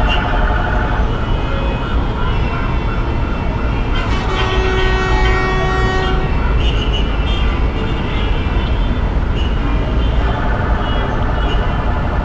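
Busy city street traffic: a steady rumble of engines, with a vehicle horn sounding once, held for about two seconds, about four seconds in.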